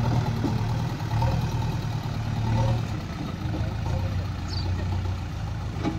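The diesel engine of a JCB 3DX backhoe loader runs steadily as it pushes soil with its front bucket. The engine note drops a little about halfway through.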